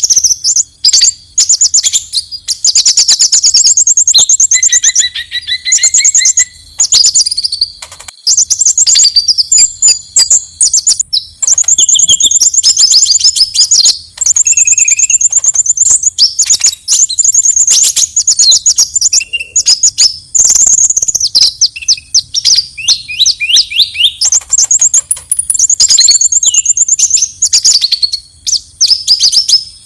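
A konin songbird singing its fighting song: loud, fast, rapid-fire trills and chattering phrases, high-pitched, broken by short pauses. It is the aggressive challenge song that bird keepers play to provoke and tutor caged birds.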